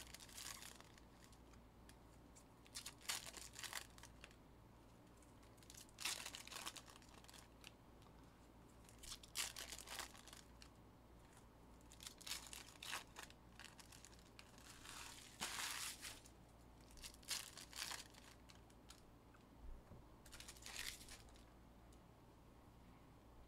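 Foil trading-card pack wrappers being torn open and crinkled, one pack after another, in short crackly bursts about every three seconds.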